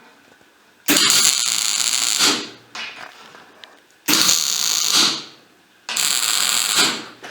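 Three short bursts of welding on the steel pipe frame, each a second or so long, with quiet pauses between.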